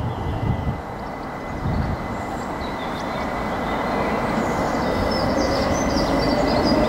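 Class 375 Electrostar electric multiple unit running in along the platform, its rumble growing steadily louder. High squeals from the wheels come and go from a few seconds in, and a faint whine rises slowly in pitch near the end.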